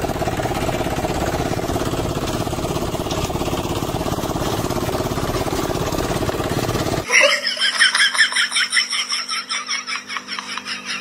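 Plastic children's toy push mower rattling and clicking fast and steadily as a German shepherd pushes it over grass. It cuts off about seven seconds in. A louder fast run of short, high strokes follows, about four a second.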